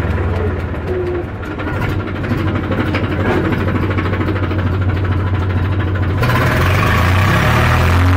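Tractor engine running steadily with a deep, even hum. About six seconds in the sound changes abruptly, becoming brighter and hissier.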